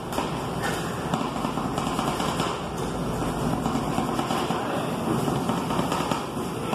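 Metal spatulas chopping and scraping ice cream base on a rolled ice cream machine's frozen metal cold plate: a rapid, uneven run of clacks and scrapes.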